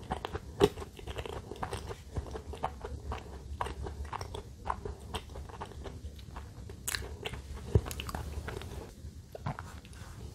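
Close-miked chewing of soft cream bread: a steady run of wet smacking and small mouth clicks, with two sharper clicks, one just after the start and one about three-quarters through.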